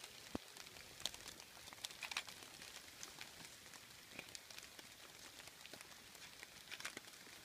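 Faint light rain: scattered drops ticking irregularly over a soft steady hiss.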